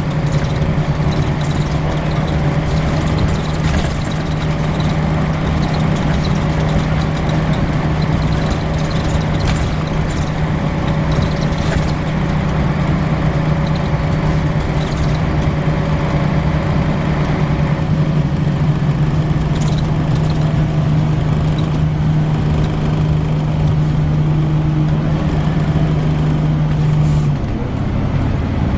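Volvo B10BLE single-deck bus heard on board, running with a strong steady hum that cuts out abruptly near the end while the bus noise carries on.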